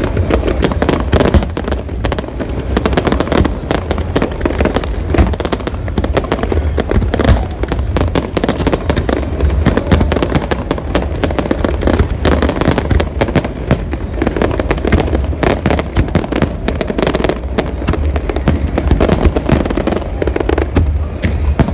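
Fireworks display going off: a dense, unbroken run of bangs and crackles from many shells and comets fired at once.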